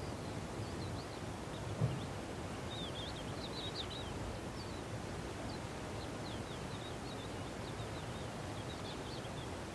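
Quiet outdoor ambience: a steady low hiss under many short, high chirps of small birds, busiest about three to four seconds in and again near the end. A soft low bump comes about two seconds in.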